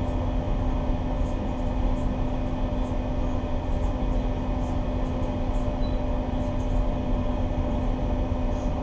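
Steady drone of a boat's engines with a constant, unchanging hum.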